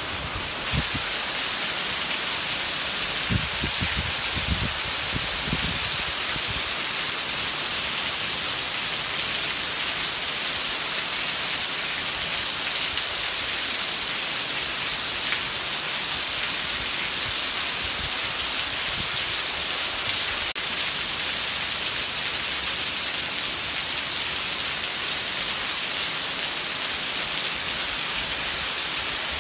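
Heavy rain pouring down steadily and splashing onto a wet tiled patio and garden plants. A few dull low thumps sound in the first six seconds.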